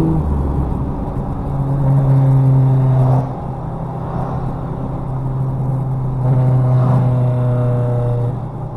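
Ford Explorer Sport Trac's 4.0-litre V6 engine heard from inside the cab, droning at a steady cruise. It pulls louder from about a second and a half, eases off about three seconds in, then pulls again from about six seconds until near the end.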